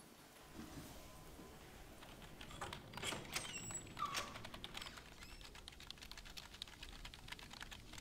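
Typing on a laptop keyboard: quick, faint key clicks that begin a couple of seconds in and keep going, with a brief squeak about four seconds in.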